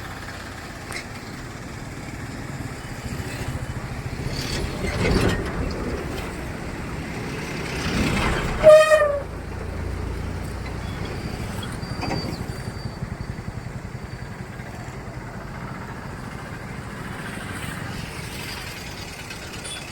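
Steady road and engine noise with vehicles passing, and one short vehicle horn blast about nine seconds in, the loudest sound here.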